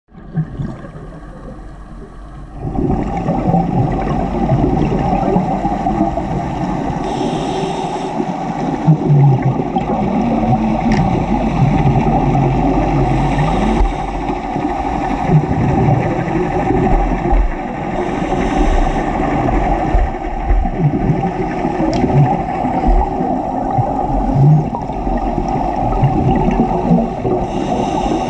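Underwater sound as heard through a camera housing: a scuba diver breathing through a regulator, with a rush of exhaled bubbles about every five seconds over a steady, muffled rumble. The rumble grows louder about two and a half seconds in.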